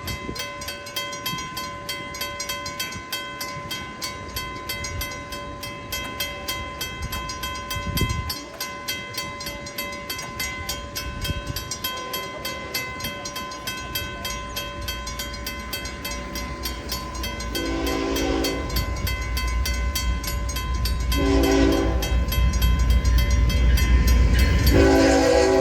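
Railroad crossing warning bell ringing rapidly and steadily while a Union Pacific freight locomotive approaches, sounding its horn in three blasts, the first beginning about two-thirds of the way in; the low rumble of the train grows louder toward the end as it nears the crossing at speed.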